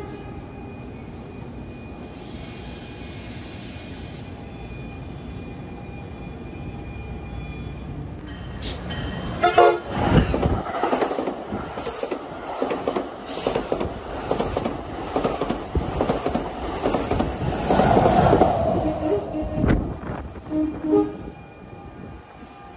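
NJ Transit push-pull commuter train of bilevel MultiLevel coaches running in and passing close by: a steady rumble as it approaches, then a loud rush with the wheels clattering rhythmically over the rail joints. The horn sounds briefly about nine seconds in and again near the end.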